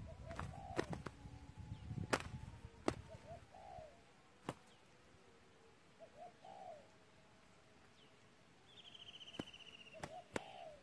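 Spotted doves fighting. Sharp wing slaps come now and then, with scuffling through the first few seconds. A short three-note dove coo repeats about four times. Near the end a high buzzy trill comes in.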